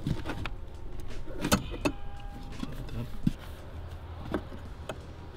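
Scattered clicks and light knocks of catch can kit parts being handled and pushed into place by hand, about six in all, the sharpest about a second and a half in, over a low steady hum.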